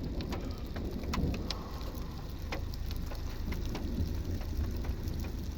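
Scattered raindrops striking a vehicle in irregular sharp ticks over a steady low rumble from the car.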